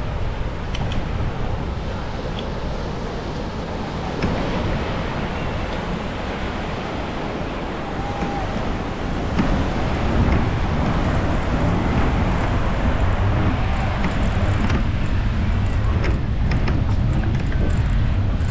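Wind buffeting the microphone of a moving bicycle rider, a steady low rumble that gets louder about ten seconds in.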